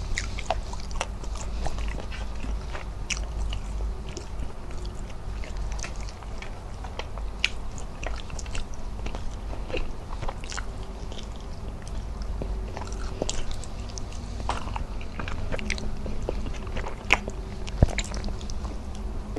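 Close-miked chewing and wet mouth sounds of a person eating rice and squid adobo by hand, with many short clicks and smacks scattered throughout.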